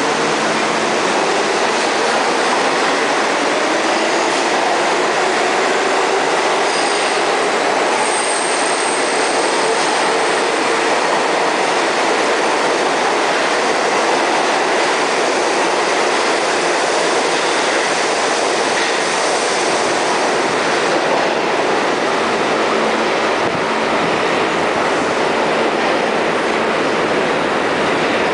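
New York City subway train moving through the station: a loud, steady rumble of steel wheels on the rails, with a thin, high wheel squeal about seven to eleven seconds in.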